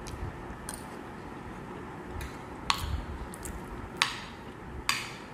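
Metal spoon scraping and clinking against a ceramic plate while scooping up food, with three sharp clinks in the second half.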